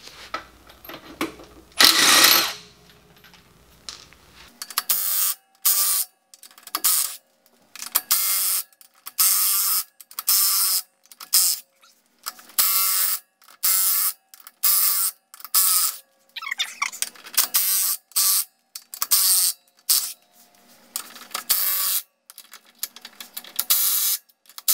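Cordless impact wrench hammering in many short bursts with brief pauses between them. It is breaking loose and spinning off the Loctite-coated nuts that hold a wheel spacer to the hub.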